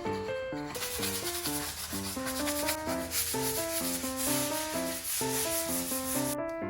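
Sanding over a repair patch, starting about a second in and cutting off just before the end, over background music.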